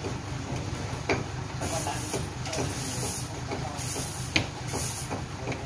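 Truck engine running steadily while the mounted crane stands by, with two sharp clinks of the lifting chains, about a second in and again near four and a half seconds, and several short bursts of high hiss.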